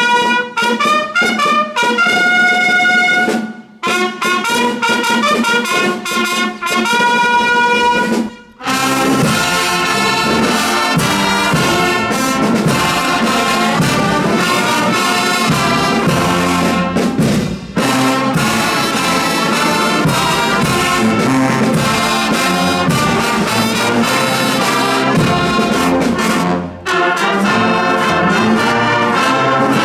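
Brass band with sousaphones and trumpets playing. A few horns sound a short phrase of held notes, with two brief breaks, and at about nine seconds the full band comes in playing in harmony.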